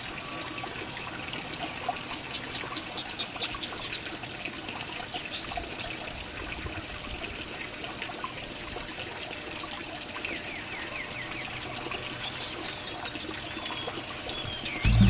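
A steady high-pitched hiss that holds an even level, with faint short chirps in the second half.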